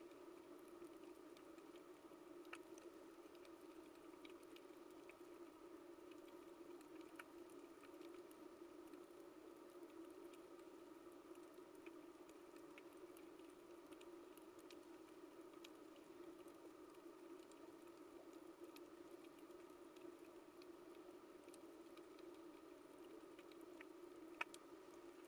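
Faint underwater coral reef ambience: sparse sharp clicks and crackles over a steady low hum, with one louder click near the end.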